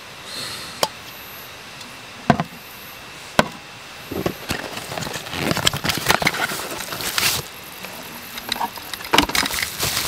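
Objects being handled: a few sharp separate clicks, then a few seconds of dense crinkling and rustling with small clicks, and a few more clicks near the end.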